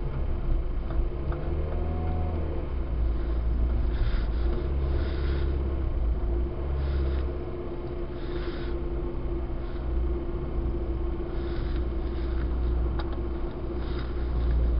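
Car engine running and a steady low road rumble heard from inside the cabin while driving slowly over packed snow, with a few short bursts of hiss.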